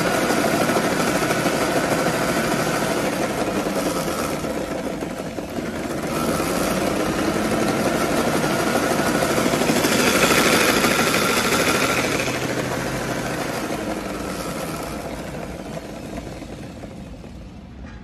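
Motor of a 3D floor polisher with vacuum cleaner running with a steady whine. It dips briefly about five seconds in, is loudest around the middle, and fades gradually near the end. The machine had been cutting out because its internal toggle switch is loose.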